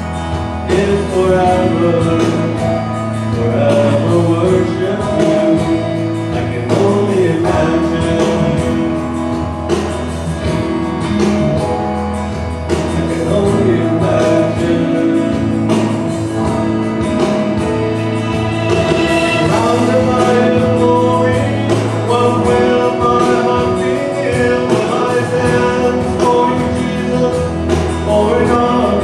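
A man singing a Christian worship song into a handheld microphone over instrumental accompaniment.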